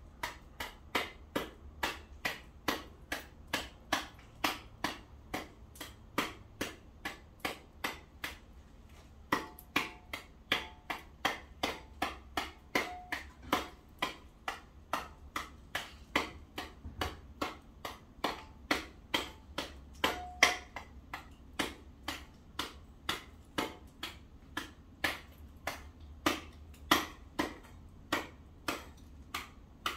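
Sharp knocks, about two and a half a second, with a short pause about eight seconds in: a hand tool striking and chipping ice on a paved driveway.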